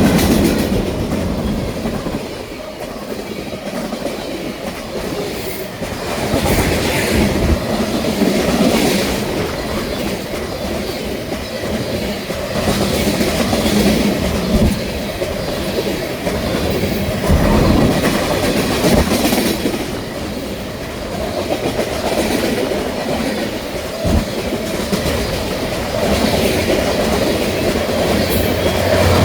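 CSX freight train rolling past, its cars' wheels clacking over rail joints in an uneven rhythm, with a steady rumble and rattle of the passing cars.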